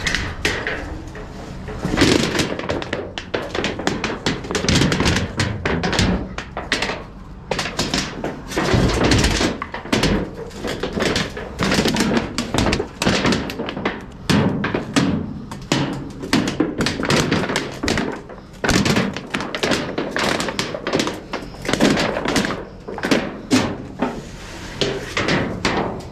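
Irregular run of clanks and thunks, sometimes several a second, from pieces of scrap metal being handled and dropped onto piles while being sorted into steel and aluminum.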